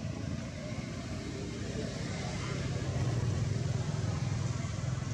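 Steady low rumble like a motor vehicle's engine running, growing louder about three seconds in.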